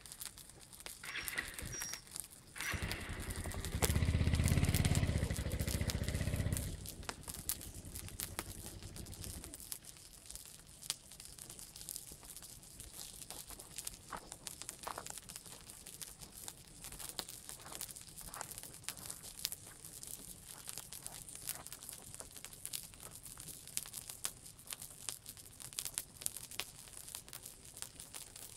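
Dry grass and pine-needle litter burning on the forest floor, crackling with many small sharp pops. An engine runs loudly over the first part, loudest about four to six seconds in and gone by about ten seconds in.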